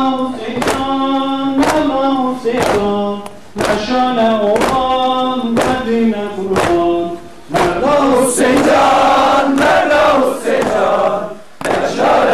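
Devotional chant for Hüseyin: a lead voice sings a drawn-out, wavering line while a sharp beat keeps time about every half second or so. About seven and a half seconds in, a crowd of voices takes up the chant together.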